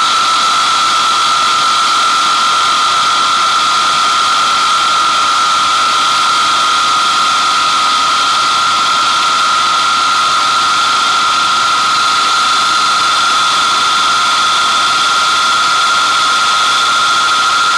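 Avro Vulcan bomber's Rolls-Royce Olympus turbojet engines running steadily: a loud, unchanging rush of noise with a high, steady whine on top.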